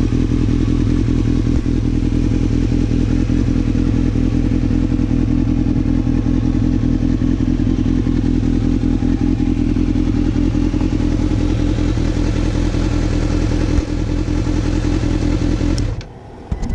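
2010 Kawasaki ZX-6R inline-four idling steadily through an aftermarket HP Corse exhaust. Near the end the sound drops away briefly.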